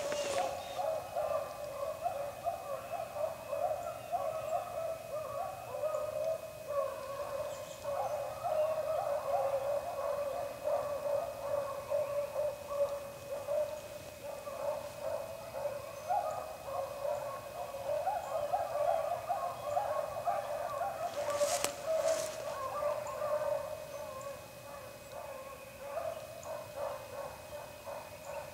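A pack of beagles baying in chorus while running a rabbit: many overlapping long hound bawls, going on without a break.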